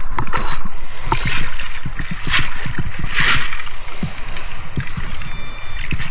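Water sloshing and splashing in shallow surf, with scattered knocks and gurgles, as a sand scoop digs out a metal detector target. Two louder splashes come a little past the middle.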